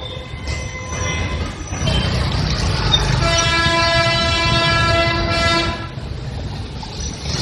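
Street traffic rumbling, with a horn sounding one long steady note for nearly three seconds, starting about three seconds in.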